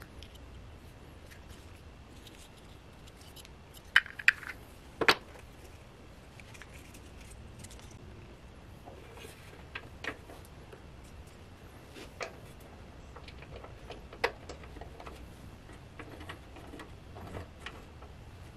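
Hard plastic control knobs clicking and knocking as they are handled and pushed onto the valve stems of a propane camp stove. A few sharp clicks about four to five seconds in are the loudest, with scattered lighter clicks after.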